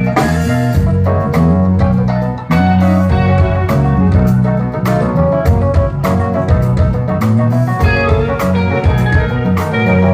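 A band playing at a sound check: a walking bass line under guitar and keyboard melodies, with a steady drum beat.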